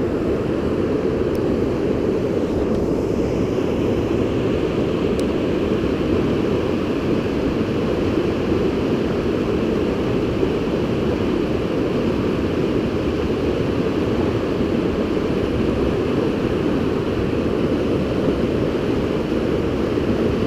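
Small mountain creek rushing over boulders in close white-water rapids: a loud, steady rush of water.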